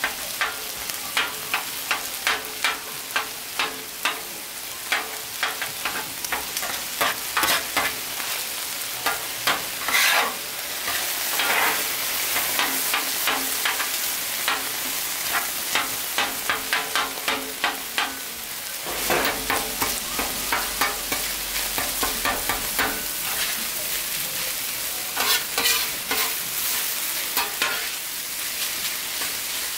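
Meat sizzling on a hot Blackstone flat-top steel griddle while a metal spatula chops and scrapes it: repeated sharp clacks of the spatula on the griddle plate over a steady frying hiss.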